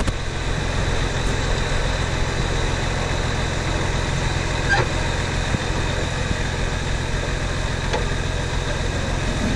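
Jeep engine idling steadily while the vehicle sits stuck in deep mud.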